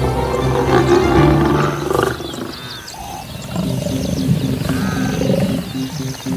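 Lions growling: one long, loud growl over about the first two seconds, then quieter, shorter growls.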